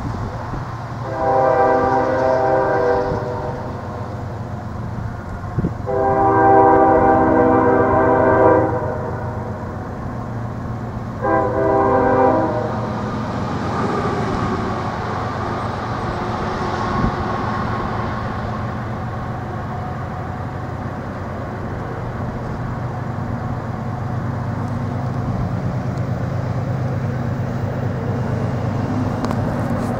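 Diesel locomotive air horn on an approaching freight train sounding a multi-note chord in three blasts, long, long, then short. A steady low rumble of the oncoming train continues under and after them.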